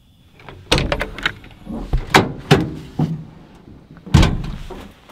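Pickup truck door being opened and shut: a sharp clunk about a second in, several knocks and thumps, and another loud clunk about four seconds in.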